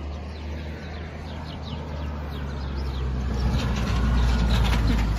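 A motor vehicle's engine running, a steady low hum that grows louder over the last couple of seconds as it draws near, then cuts off suddenly. Faint bird chirps in the first two seconds.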